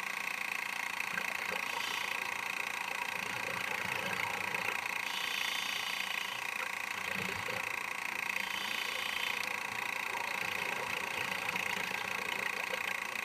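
Underwater recording during a scuba dive: a steady mechanical hum, typical of a camcorder's own running noise inside its waterproof housing, with a higher hiss that switches on and off every few seconds. Low bubbling from divers' exhaled air rumbles through it now and then.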